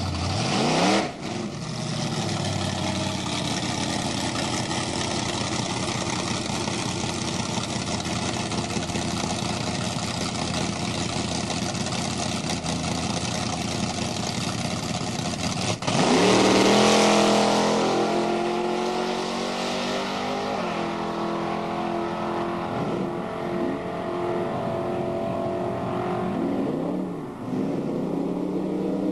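Camaro drag car's V8 engine revving up at the start line and launching, then running loud and steady down the strip. Near the middle an abrupt break is followed by another engine note rising sharply, which then settles into a steadier drone.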